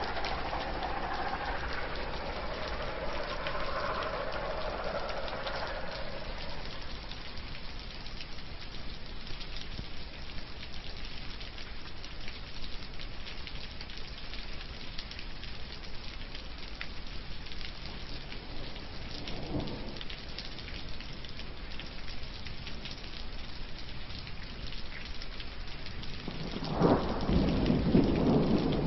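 Steady rain falling, with many small drop ticks close to the microphone. A pitched hum fades out in the first few seconds, and a louder rustling bump comes near the end.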